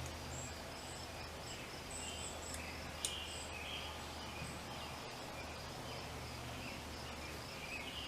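Crickets chirping in short high repeated notes over a steady low hum, with a sharp click about three seconds in.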